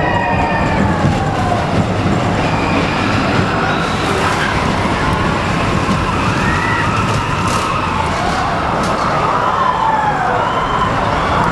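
Expedition Everest roller coaster train running fast on its track, a loud steady rumble, with riders' screams rising and falling over it.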